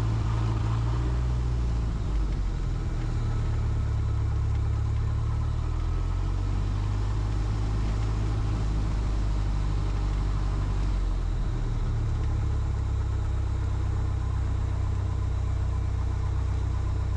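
Super Decathlon's four-cylinder Lycoming engine and propeller idling steadily at low power on the ground, heard from inside the cockpit, with small shifts in its low drone.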